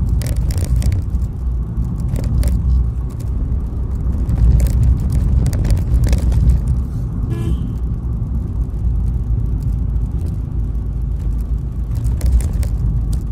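Steady low rumble of engine and road noise inside a moving vehicle's cabin, with frequent short knocks and rattles as it rides over the uneven road. A brief higher-pitched sound comes about seven seconds in.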